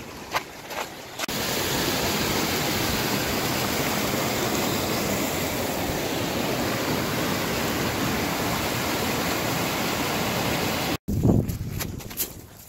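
Snowmelt stream cascading over rocks, a steady loud rush of water. It cuts off about eleven seconds in and gives way to a few thuds of footsteps on the trail.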